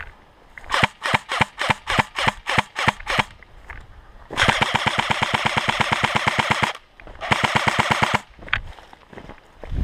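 Airsoft gun firing: about ten single shots in quick succession, roughly four a second, then a long full-auto burst of about two and a half seconds and a second, shorter burst near the end.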